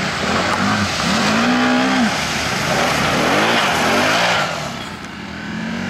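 Quad (ATV) engine revving up and down in several bursts, each a rise and fall in pitch, over a rushing noise as it drives through mud; the sound eases off near the end.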